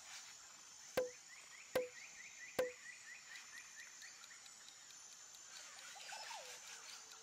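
Three short pop sound effects about 0.8 s apart, each a sharp click with a brief falling tone, as the three answer options pop onto the screen. Behind them is a faint quick run of chirps, about eight a second, and a soft pitch glide near the end.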